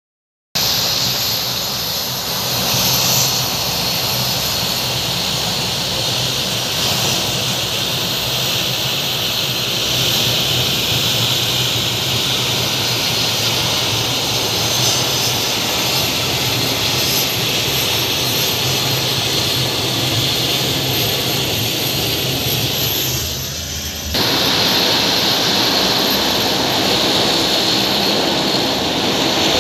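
Turboprop engines of a Biman Bangladesh Airlines De Havilland Dash 8-400 running as it taxis: a steady high engine whine over a low propeller hum. The noise dips briefly just before the 24-second mark, then comes back abruptly.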